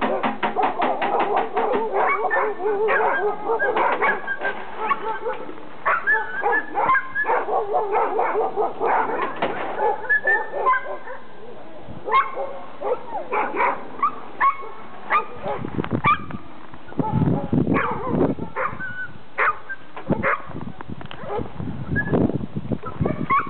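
A yard full of sled huskies barking over and over. Through the first half long wavering cries run under the barks. In the second half low muffled thumps and rustles sound close by.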